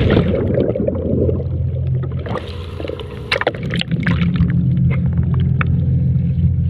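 Fishing boat's engine running with a steady low hum, water sloshing against the hull, and a few sharp knocks or splashes a couple of seconds in.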